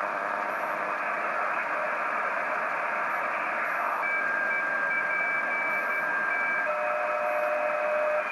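ICOM IC-PCR1000 shortwave receiver in CW mode with its 2.8 kHz filter, tuned across the 40-metre amateur band: a steady band of receiver hiss. About halfway in, a steady beat-note whistle from a signal appears, along with a higher tone that switches on and off. Near the end the whistle drops to a lower pitch as the receiver steps down 1 kHz.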